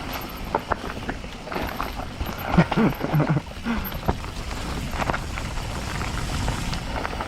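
Mountain bike riding down a dirt trail: steady rumble of tyres and wind with scattered rattling clicks from the bike. A rider makes a brief vocal sound about three seconds in.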